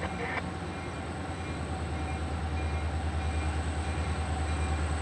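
Diesel locomotives of an approaching freight train heard from a distance: a steady low engine rumble that grows gradually louder.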